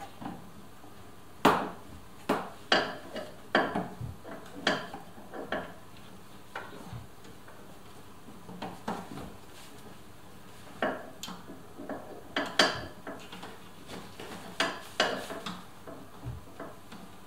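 Hand tools and metal parts clinking and knocking against the inner sheet metal of a car door as a window-regulator motor is fitted. Sharp, irregular metallic clicks come in bunches with short pauses between.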